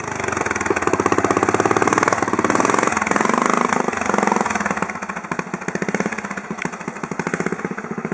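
Classic trials motorcycle engine pulling the bike up a rocky step, the firing pitch rising and falling with the throttle. It grows quieter about halfway through as the bike rides away.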